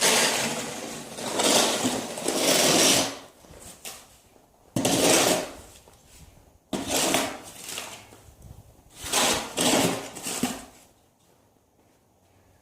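Snow shovel scraping and pushing snow, about seven strokes of a half-second to two seconds each, several starting with a sudden scrape.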